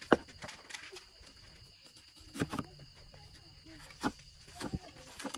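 Cleaver chopping a green bell pepper on a thick wooden stump chopping block: a handful of separate knocks, the sharpest right at the start and the rest coming about a second apart in the second half.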